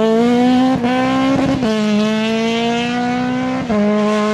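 Rally car engine running hard at high revs, its note holding high and steady, with short dips in pitch about a second and a half in and near the end.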